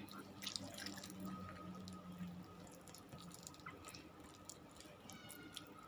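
Faint wet clicks and smacks of a mouth chewing food, over a low steady hum.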